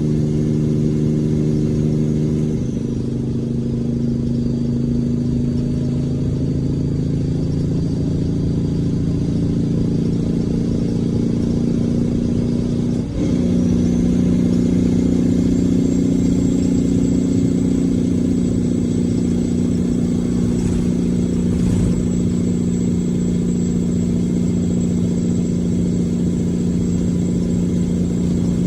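Caterpillar C-12 diesel truck engine running under its Jake (engine compression) brake, a steady heavy drone. About halfway through the sound dips briefly, then resumes at a different pitch while a thin high whine rises in.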